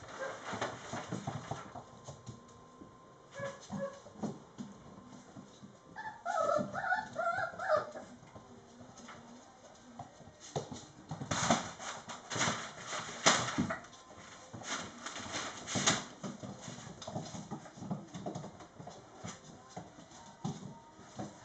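Mastiff puppies about four and a half weeks old moving around on a wooden floor, with scattered taps and scuffs. A puppy whines with a wavering, high cry for about two seconds around six seconds in, after a shorter cry a little earlier.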